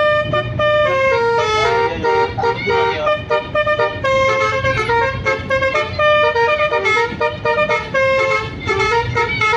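Bus's basuri 'telolet' multi-tone horn playing a melody of quick, stepped notes, with a low rumble underneath.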